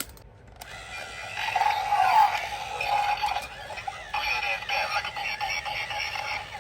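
A single click, then electronic music with a synthetic voice-like melody starts about half a second in and runs on, turning more rhythmic and pulsing partway through.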